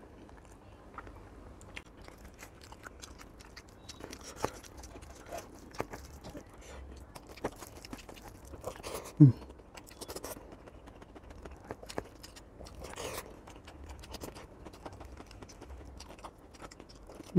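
Close-up eating sounds: chewing and small wet clicks as rice and fried fish are eaten and mixed by hand on a plate. About nine seconds in there is a short vocal hum that falls in pitch.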